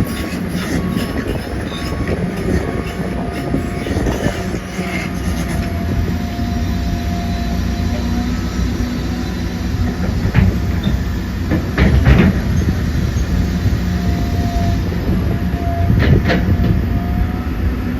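A train rolling past on the tracks: a steady heavy rumble with a few sharp clacks of the wheels over the rails.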